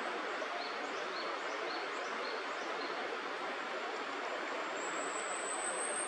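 Steady rushing background noise. Over it, a small bird gives a run of short high chirps, about two a second, through the first half, and a thin high whistle rises slightly near the end.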